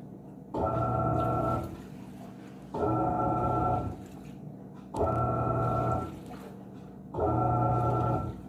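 Panasonic 14 kg washing machine in its wash cycle: the motor drives the agitator in strokes of about a second and a half, four times, each with a steady motor whine over churning water, with short quieter pauses between as it reverses.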